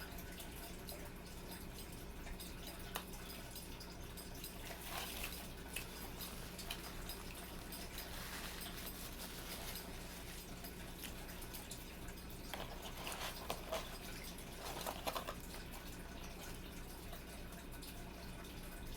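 A person chewing and eating a burger, with small wet mouth clicks and a few short bursts of louder chewing or rustling over a steady low hum.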